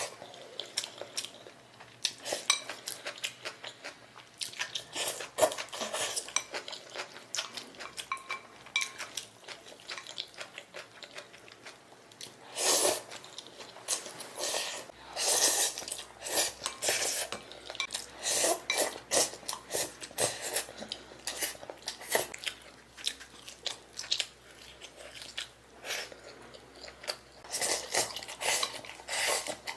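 Close-up eating: a person chewing and biting food, with irregular clinks of cutlery against a dish.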